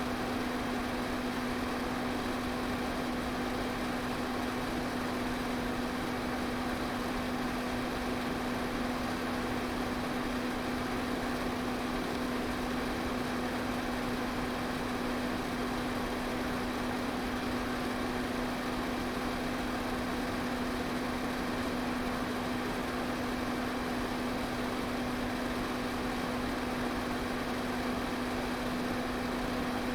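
Electric pedestal fan running steadily: an even rush of air over a low, constant motor hum.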